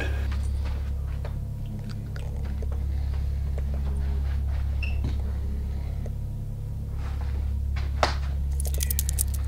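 Steady low electrical hum from a public-address microphone system, with scattered light clicks and crunches. A sharp click comes about eight seconds in.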